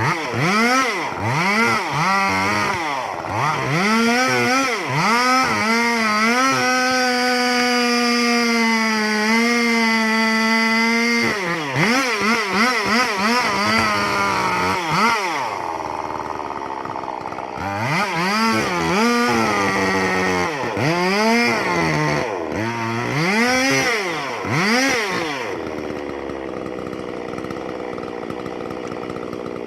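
Petrol chainsaw revved up and down again and again, held at full throttle for about four seconds partway through, then blipped again and dropping back to a lower idle near the end.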